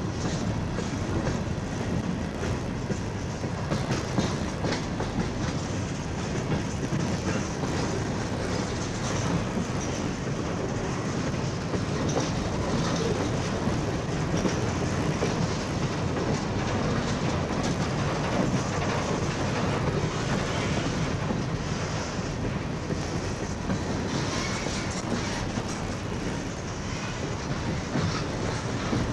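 Freight train's cars rolling steadily past, the wheels clicking over the rail joints.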